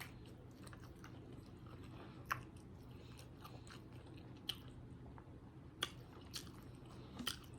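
Close-miked chewing of a sausage, egg and cheese biscuit, with a handful of sharp wet mouth clicks and smacks spread through it over a faint steady hum.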